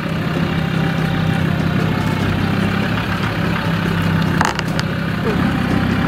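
Land Rover Defender 130's engine running steadily at low speed as it crosses a wooden plank bridge, with a single knock about four and a half seconds in.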